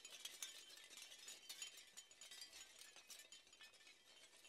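Faint, rapid high clicking and clinking, many small ticks a second, with no steady tone.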